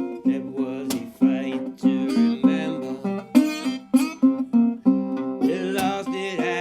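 National Resophonic tricone resonator guitar played bottleneck style with a slide: a run of plucked blues notes about twice a second, with the pitch sliding into and between notes.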